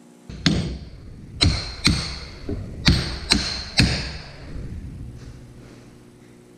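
Hammer blows on a driver, tapping a new bearing into the heated differential case of a 1995 Honda Foreman 400 ATV: seven sharp metallic strikes at an uneven pace, each with a short bright ring, one of them lighter.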